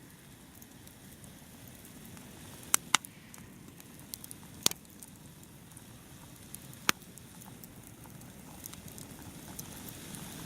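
Wood campfire burning: a low steady rush of flames with a handful of sharp pops and cracks from the firewood, the loudest close together about three seconds in and again near five seconds.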